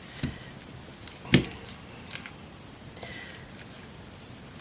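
A few knocks and clicks of craft things being handled and set down on a work table, the loudest a sharp knock about a second in.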